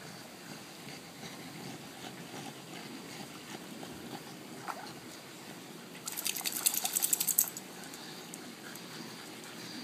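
Pool water lapping and splashing faintly around swimming Cavalier King Charles spaniels. About six seconds in comes a loud burst of rapid flapping and spattering water, about a second and a half long.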